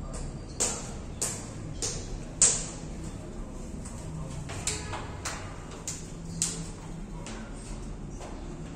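Footsteps on a hard stone floor: sharp clicking steps about 0.6 s apart, in two runs with a short pause a few seconds in.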